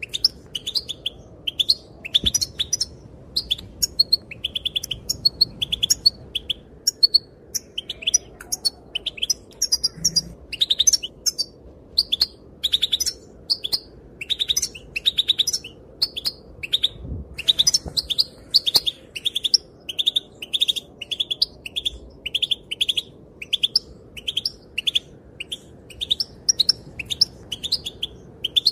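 European goldfinch, given as a female's calls, twittering and calling in a steady stream of quick, high chirps and short trills, several a second, thinning briefly about a third of the way in.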